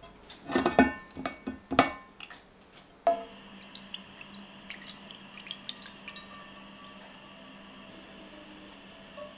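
A few loud metallic clatters from a mesh sieve knocking on a metal pot. About three seconds in, strained chicken stock starts pouring into a stainless steel pan, then runs on steadily with small drips and splashes.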